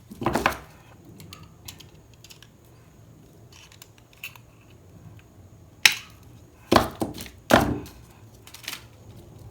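Wire cutters snipping and working solid 14-gauge wire: a sharp click just after the start, then four more sharp clicks spaced under a second apart near the end.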